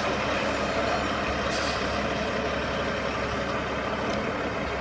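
Diesel engine of a heavy semi truck running at low speed as the truck creeps around a tight turn. A short hiss of air brakes comes about a second and a half in.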